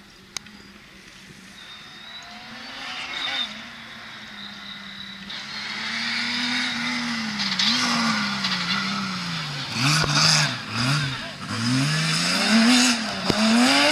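Rally car approaching, its engine note growing steadily louder. In the last few seconds the revs drop and climb again several times in quick succession as it comes close.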